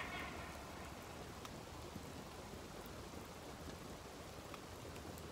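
Light rain falling: a faint, even hiss with a few scattered drop ticks.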